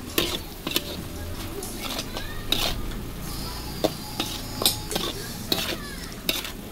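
Metal spatula scraping and knocking against a metal wok while stir-frying napa cabbage and meatballs, in irregular sharp strokes about once or twice a second.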